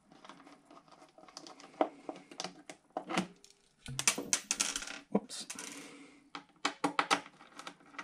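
T10 Torx screwdriver backing out the small screws that hold an iMac's power supply, a run of small metallic clicks and ticks. There is a stretch of scratchy handling noise about four to six seconds in.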